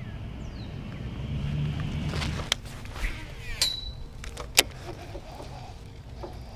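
A baitcasting rod being cast and its reel handled: several sharp clicks and snaps, the loudest one about four and a half seconds in. These sit over a low boat-motor rumble that fades out about two and a half seconds in.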